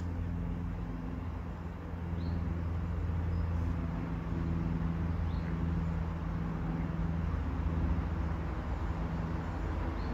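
Steady low engine-like drone, with a few faint short high chirps over it.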